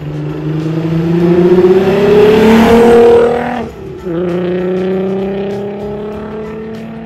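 Volkswagen GTI with a swapped-in 3.6-litre VR6 accelerating past. The engine note climbs in pitch to its loudest about three seconds in, dips briefly at a gear change, then climbs again in the next gear as the car pulls away and fades.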